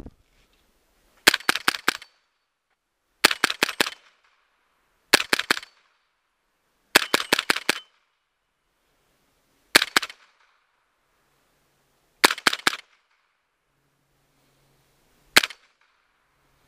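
.22 rimfire rifle, an AR-15 fitted with a CMMG .22 conversion kit, firing quick strings of shots at steel targets. The shots come in seven bursts with pauses of one to three seconds between. The last burst, near the end, is a single shot.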